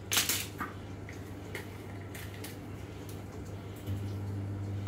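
Small kitchen handling sounds from a measuring spoon and a small yeast jar: a short rustling scrape just after the start, then a few light clicks. A steady low hum runs underneath and grows a little louder about four seconds in.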